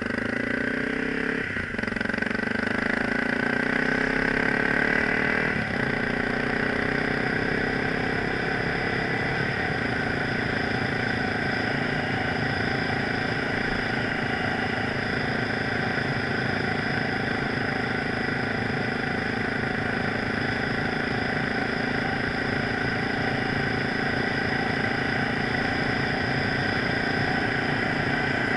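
Motorcycle engine running while the bike is ridden. The engine note shifts over the first several seconds, then holds steady at an even speed.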